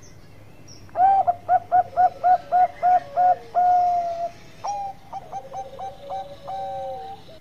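Bangkok-strain zebra dove (perkutut) singing. About a second in comes a loud run of about ten quick, clipped coos, roughly three a second, closing on one long drawn note. It is followed by a softer run of short coos ending in another long note.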